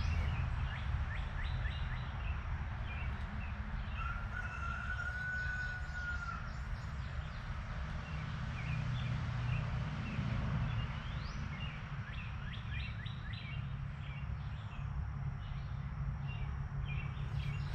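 Small birds chirping over and over, with one drawn-out whistle a few seconds in, over a steady low rumble.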